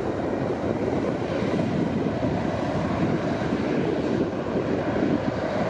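Boeing 737's twin turbofan engines at takeoff thrust during the takeoff roll on a wet runway: a loud, steady rushing noise.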